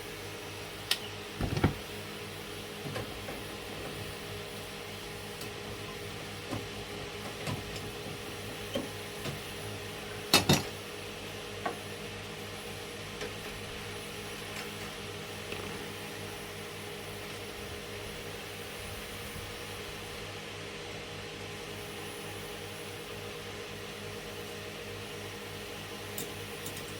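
Scattered small metallic clicks and clinks of hand tools and terminal hardware being handled while battery cables are fastened to their terminals. The loudest is a double knock about ten seconds in. Under them runs a steady mechanical hum.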